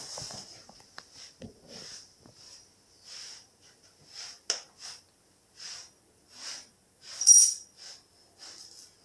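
Broom bristles swishing over a tile floor in short, repeated strokes, roughly one a second, sweeping up shards of broken picture glass; the loudest stroke comes near the end. A couple of sharp ticks of glass shards sound among the strokes.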